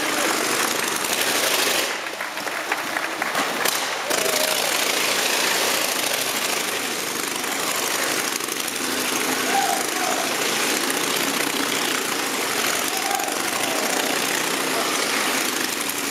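1923 Indian V-twin motorcycle running hard and steady as it circles the Wall of Death, a loud, ragged engine note that dips briefly about two seconds in.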